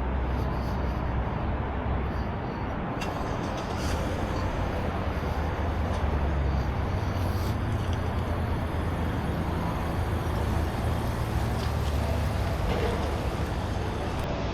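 Steady rumble of motor vehicle traffic, with engines running close by.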